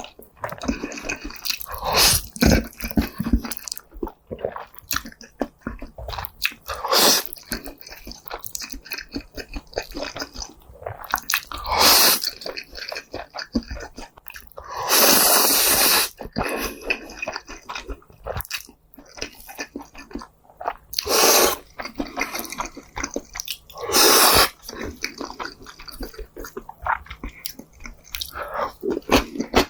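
Close-miked eating: a person chewing, with crisp crunchy bites and wet mouth clicks. Several loud noisy bursts recur every few seconds; the longest, about a second and a half, comes midway.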